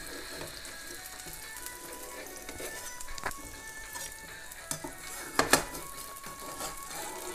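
Oil still sizzling steadily in a hot nonstick frying pan just taken off the gas, under a tomato omelette, while a slotted spatula scrapes under it and knocks against the pan. Sharp knocks come a little after three seconds and, loudest, about five and a half seconds in.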